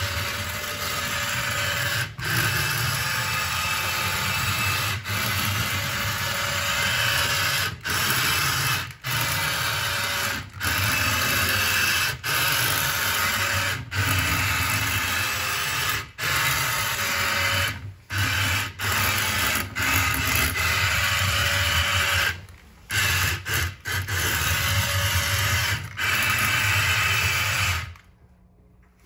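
Electric motor and gears of a Bandai tin toy Nissan Bluebird, repaired from non-working, whirring steadily as the car runs across a wooden floor, cutting out briefly every second or two. It stops near the end.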